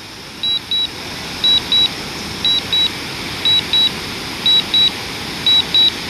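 DJI Mavic Air remote controller sounding its warning: pairs of high-pitched beeps, one pair every second, signalling that the drone is on its automatic return-to-home with the battery low. Underneath is a steady rushing noise.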